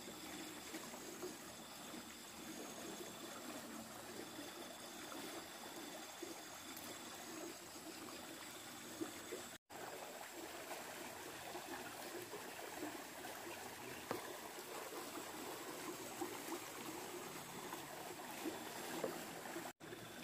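Low, steady rush of flowing water in a channel, with faint steady high-pitched tones above it.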